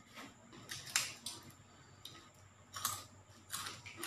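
Balut eggshells being cracked and peeled by hand: a series of small, irregular sharp crackles, the loudest about a second in.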